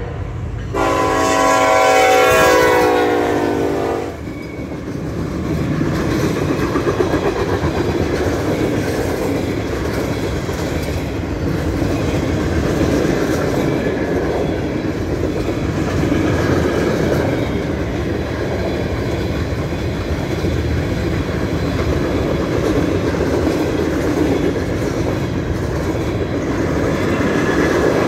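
Freight train horn sounding for about three seconds, then the train's cars rolling past with a steady rumble and clatter of wheels on the rails.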